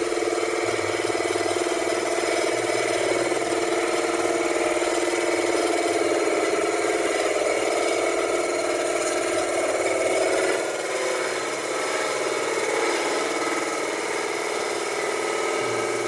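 Small benchtop metal lathe running steadily, its motor and belt drive humming as it spins a chucked aluminium beer can. The hum dips slightly about ten seconds in.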